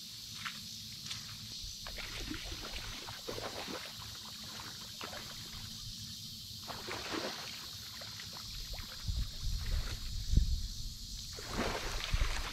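A hooked common carp splashing and thrashing in shallow water close to the bank as it is played in. The splashes grow heavier and louder over the last few seconds.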